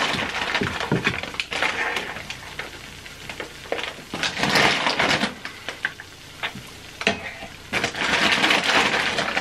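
Silicone spatula scraping and stirring melted mozzarella on a hot electric griddle: short taps and clicks against the metal plate, with two longer scraping strokes about halfway through and near the end, over the sizzle of the cheese.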